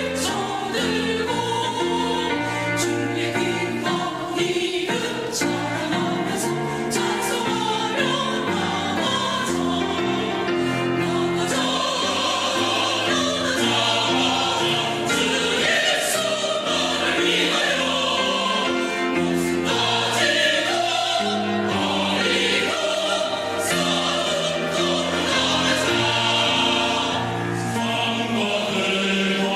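Church choir singing a hymn anthem in parts.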